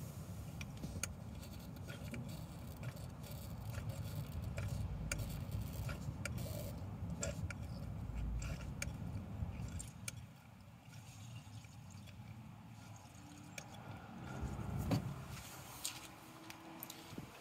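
Scattered light clicks from the hand-priming lever of a Traction Avant's mechanical fuel pump being worked before a cold start, over a low, uneven rumble that drops away about ten seconds in.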